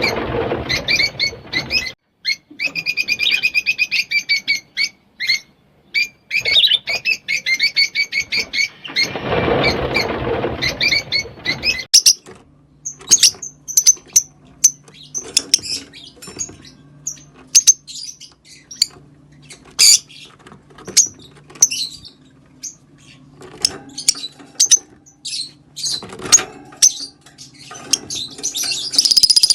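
Green Fischer's lovebirds calling. For about the first twelve seconds they give fast runs of rapidly repeated high chirps, then single sharp chirps every half second or so over a faint low steady hum, and a dense burst of calls near the end.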